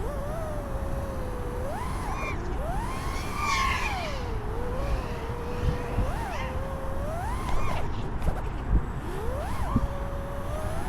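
FPV quadcopter's brushless motors whining, the pitch swooping up and down again and again as the throttle is punched and cut through flips and rolls. A steady low wind rumble lies under it, with a few sharp knocks in the second half.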